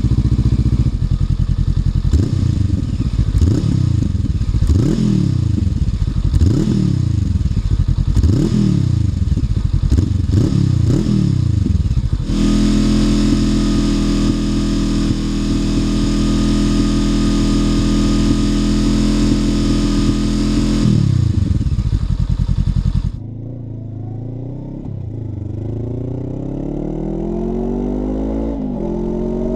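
Honda NX500's parallel-twin engine through a Black Widow 300SS slip-on exhaust: about six quick throttle blips, then held at high revs for about eight seconds and let back down. After a sudden drop in level, the bike pulls away with the engine note rising through the gears, dipping at two shifts.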